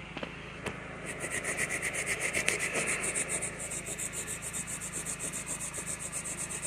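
Small hand brush scrubbing back and forth on shaggy carpet in quick, even strokes, about six or seven a second, starting about a second in. It is agitating a spotting solvent into a paint stain.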